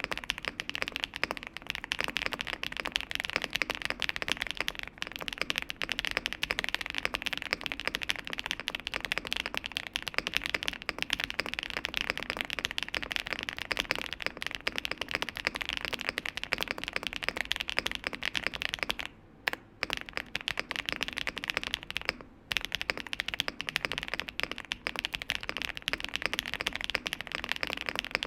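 Fast continuous typing on a gasket-mounted mechanical keyboard with BSUN Taichi linear switches, a polycarbonate plate and PBT keycaps, giving a deep, poppy keystroke sound. The typing pauses briefly twice in the second half.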